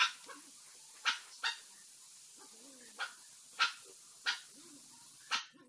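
A dog barking repeatedly, short sharp barks coming irregularly about once a second.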